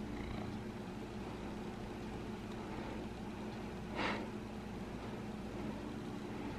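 Domestic cat purring steadily while being stroked, a low continuous rumble. A brief rustling noise comes about four seconds in.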